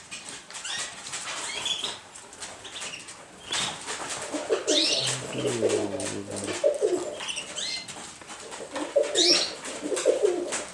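Domestic pigeons cooing, repeated warbling coos from about four seconds in, with scattered wing flaps.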